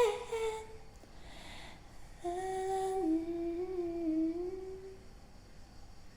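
A female voice humming a short wordless melody, unaccompanied, in a small room. The phrase lasts about three seconds, wavering and drifting gently downward, and follows the fading end of a sung note.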